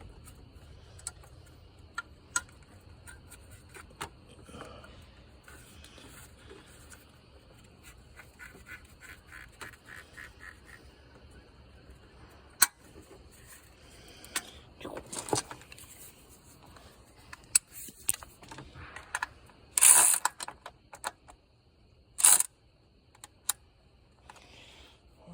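Hand ratchet clicking in a quick regular run as a bracket screw is driven in and tightened, among scattered small clicks of tool on metal. Two sharp metallic clanks near the end are the loudest sounds.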